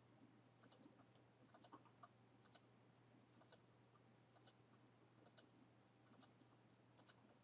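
Faint computer mouse clicks, about one a second, selecting files one after another, over a faint steady low hum.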